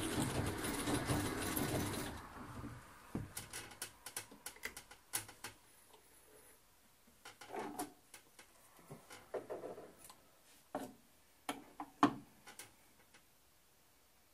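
Treadle-driven Singer 201-2 sewing machine stitching a test seam, its steady running stopping about two seconds in. Scattered clicks and knocks follow as the cloth is handled and taken out from under the presser foot.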